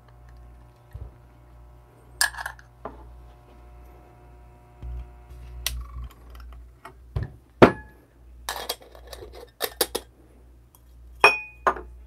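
Scattered clinks and knocks of metal espresso tools being handled and set down on the bench: portafilter, dosing funnel and dosing cup. The sharpest knock comes about eight seconds in, with a quick cluster of clicks soon after.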